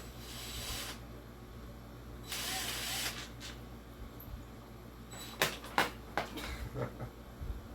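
Hand tools working at a box fan's blade hub: two short hisses, then a few sharp metallic clicks over the last couple of seconds.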